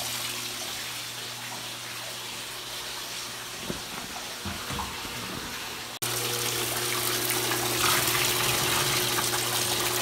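Dairy milking system in its sanitize cycle: sanitizer water rushing steadily through the milking units and hoses on the wash sink, with a steady low hum under it. A few low knocks come around four seconds in. The sound cuts off for an instant about six seconds in and comes back louder.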